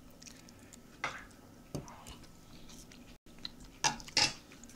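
Soft clicks and taps of plastic training chopsticks in a bowl of rice soup, with a metal spoon scraping in the bowl twice near the end.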